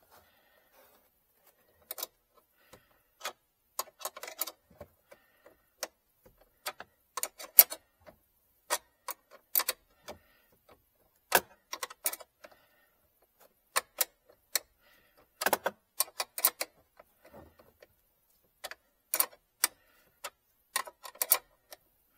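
Sharp metallic clicks and ticks of a hand tool working on a car battery's terminal clamp as it is tightened. They come singly or in short clusters at an irregular pace, with quiet gaps between.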